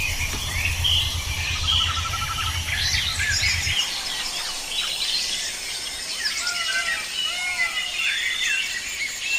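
Several birds chirping and calling at once: many short chirps and whistles, a brief trill, and downward-arching calls later on. A low hum under the birdsong cuts off about four seconds in.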